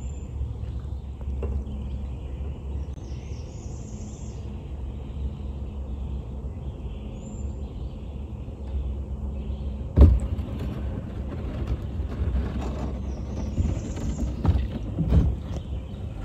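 Kayak paddling through a flooded swamp: a steady low rumble with faint bird calls, then about ten seconds in a sharp knock of the paddle or hull, followed by a run of smaller knocks and splashes as the kayak works close along the tree trunks.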